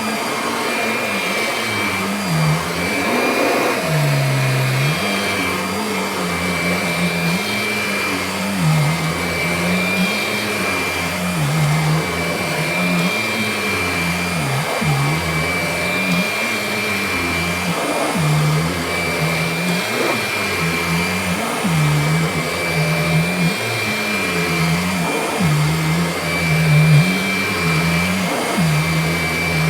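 Kirby Diamond Edition upright vacuum cleaner running steadily on a rug, with a high motor whine. Its lower note dips every couple of seconds as the load changes.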